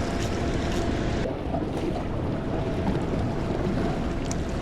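Wind buffeting the microphone over the sound of water around a small boat out at sea, a steady rumbling hiss with a faint steady hum under it.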